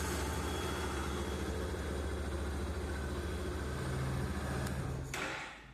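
2015 Yamaha Fazer 250 Blueflex single-cylinder engine idling steadily; it carries the small whistling noise that the owner is trying to trace. The sound drops away about five seconds in.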